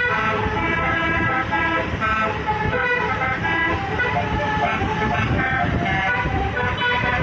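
Basuri musical bus horn playing a quick tune of short notes that change pitch every few tenths of a second, over a low engine rumble.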